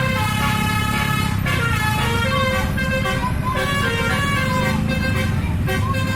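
Indonesian bus 'telolet' multi-tone musical horn playing a changing melody of several notes, over the rumble of the bus's engine.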